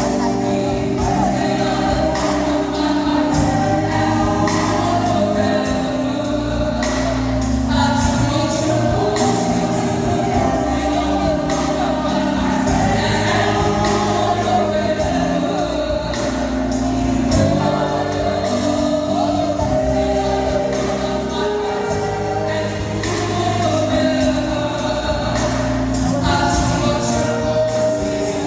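Gospel choir singing in full harmony over a steady beat.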